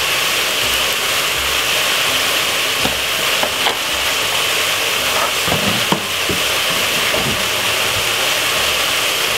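Salt fish, onion and sweet peppers sizzling steadily in olive oil in a tall stainless-steel pot, with a few light clicks between about three and seven seconds in.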